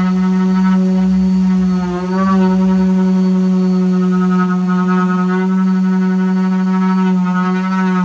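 Electric random orbital sander running steadily against a plywood speaker cabinet, a constant motor hum whose pitch dips briefly about two seconds in.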